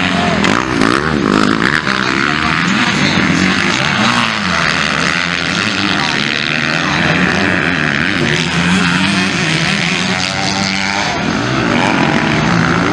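MX2-class motocross bike engines revving hard, the pitch rising and falling again and again as the riders work the throttle through the track.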